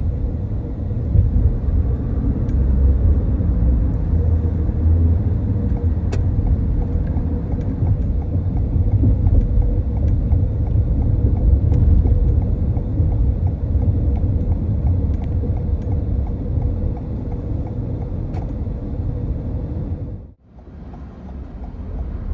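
Steady low rumble of a car driving on the road, tyre and road noise with a faint steady hum. About twenty seconds in, it drops away almost to silence for a moment, then fades back in.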